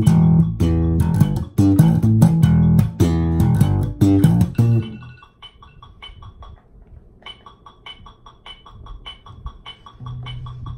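Four-string electric bass guitar playing a quick run of plucked low notes. The playing stops about halfway through, leaving faint, even ticking. A single low note sounds near the end.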